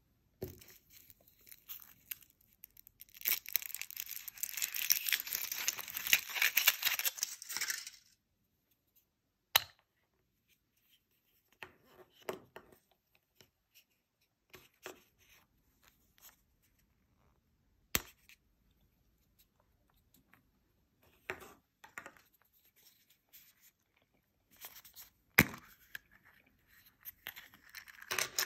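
Foil wrapper of a Kinder Surprise chocolate egg crinkling and tearing for several seconds as it is peeled off, followed by scattered clicks and cracks as the chocolate shell is broken and the yellow plastic capsule is handled and opened, with one sharp snap near the end.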